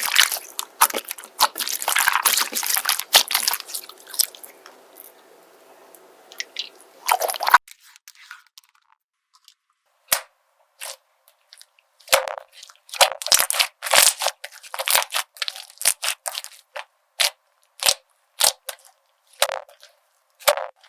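Crunchy slime being squeezed and pressed: dense, crisp crackling, then after an abrupt change about seven and a half seconds in, sparser sharp crunches.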